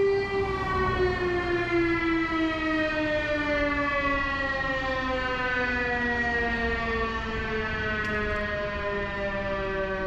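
Air raid siren winding down, its pitch falling slowly and steadily through one long tone.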